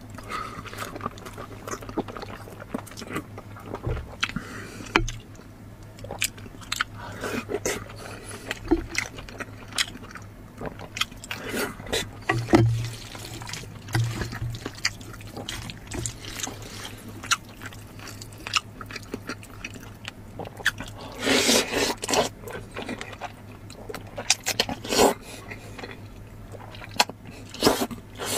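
Close-miked eating: crunching and chewing of a raw zucchini bitten whole, then wet slurping and chewing of noodles taken up with chopsticks, with many small sharp clicks and a few longer slurps in the second half. A steady low hum runs underneath.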